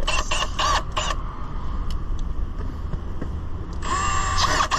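Cordless drill boring into the sheet-metal side panel of a van: a few short bursts of motor whine near the start, then a longer run under load near the end, its pitch wavering as the bit bites. A low rumble sits underneath throughout.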